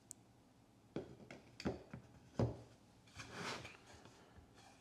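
A steel pipe center set into a 3D-printed PLA holder: a few light knocks, the loudest about two and a half seconds in, then a short scraping slide as it settles into its cutout.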